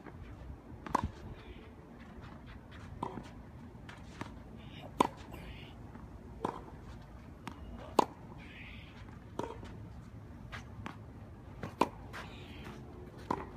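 Tennis rally: a ball struck back and forth with racquets, a sharp pop of strings on ball about every one and a half to two seconds, some hits much louder than others.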